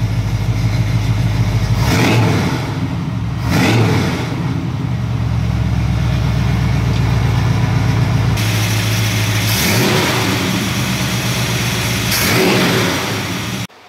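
A 1972 Chevy C10's 350 small-block V8, breathing through Summit headers and dual 3-inch Flowmaster 40 series mufflers, idling with a deep, steady exhaust note. The throttle is blipped about four times in short revs.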